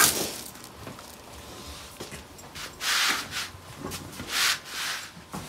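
Rustling and rubbing from items being handled, with two louder swishes about three and four and a half seconds in, and a few small knocks.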